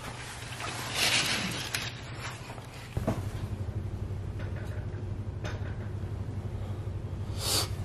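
A short rustle, then a steady low mechanical hum that starts abruptly about three seconds in and pulses rapidly, with a brief breathy sound near the end.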